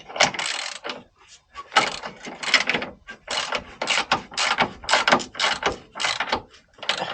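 Hand ratchet wrench being worked in short strokes, each stroke a quick run of pawl clicks, about two strokes a second, with a few pauses between them.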